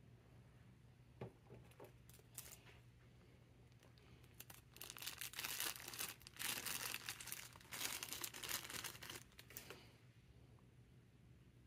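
Clear plastic parts bag crinkling as it is handled, in a loud stretch of a few seconds in the middle, after a few light clicks.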